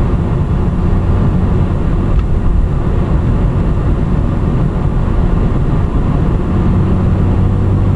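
Car cabin noise while driving at road speed: a steady low engine drone with tyre and road rumble. The drone grows stronger near the end.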